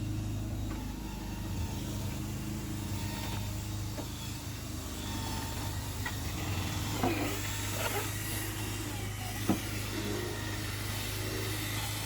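A machine runs with a steady low hum throughout. A few knocks and scraping sounds come in its second half, with one sharp knock about three-quarters of the way in.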